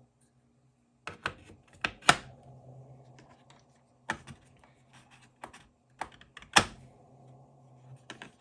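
Sharp clicks and clacks of metal impact sockets and adapters being handled and knocked against their plastic case, in irregular bunches with the loudest knocks about two seconds in and again past six and a half seconds.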